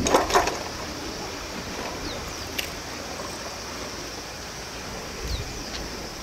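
Sea water washing and lapping, under a steady high hiss, with a few knocks in the first half second.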